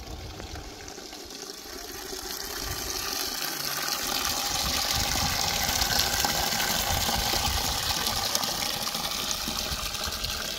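Water gushing, growing louder over the first four seconds and then running steadily.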